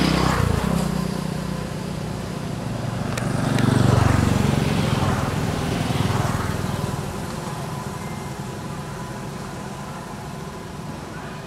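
Motor vehicles passing by: a low engine hum swells near the start, rises to its loudest around four seconds in, then slowly fades.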